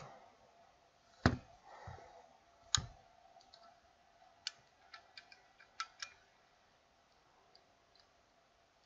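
Sharp clicks and taps of a phone motherboard being set into and secured in a board holder. Two louder clicks come about a second in and near three seconds, then a handful of lighter ticks.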